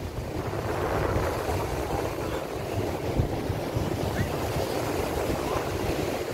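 Wind buffeting the phone's microphone in a low, fluttering rumble over the steady wash of surf breaking on the beach.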